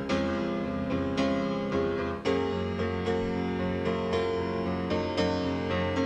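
Background score: a keyboard strikes notes over held low chords, with a new note about every half second to a second.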